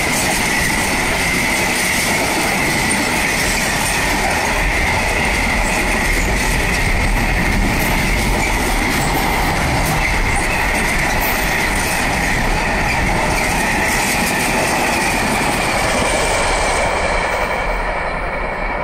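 Train passing at speed on a main line: a steady, loud rush of wheels on rail with a high whine running through it, easing slightly near the end.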